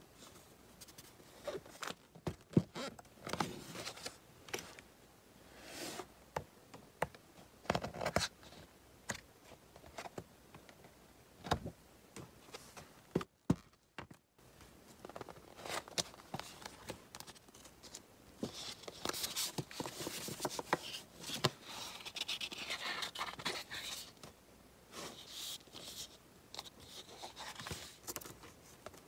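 Sheets of thick double-sided scrapbook cardstock being handled, rustling and scraping against one another and the table, with scattered sharp snaps and taps.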